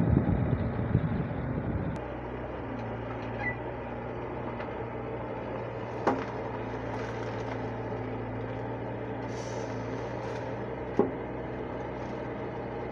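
Hitachi wheeled excavator's diesel engine running steadily. It is louder for the first two seconds, then settles to an even hum. Two sharp knocks come about six and eleven seconds in.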